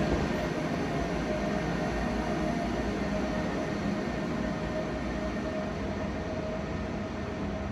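A DB class 411 ICE-T tilting electric multiple unit standing at the platform, humming steadily: a broad rush with a few held tones that neither rise nor fall.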